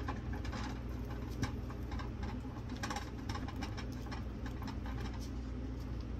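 A stick of butter in its paper wrapper rubbed over the crisp crust of freshly baked sourdough loaves: irregular light scratchy ticks and crackles.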